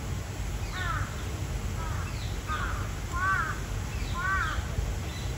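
Crow cawing five times, a series of short harsh calls, over a steady low background rumble.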